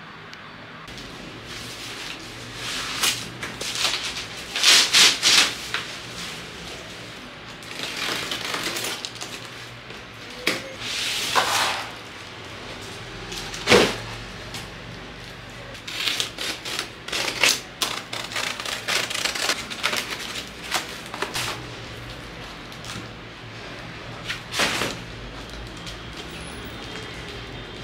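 Hands unwrapping packaging: bubble wrap and plastic crinkling and rustling, then cardboard being handled and rubbed, in irregular bursts.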